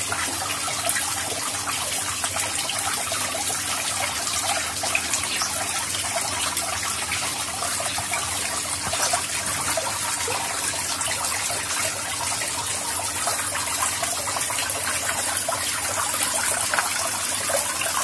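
Small decorative garden fountain, water pouring steadily from a tier into a stone basin and splashing.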